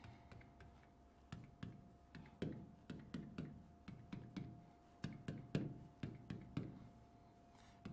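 Faint, irregular taps and clicks of a pen on an interactive whiteboard's screen as the lines of a structural formula are drawn, a dozen or more over several seconds.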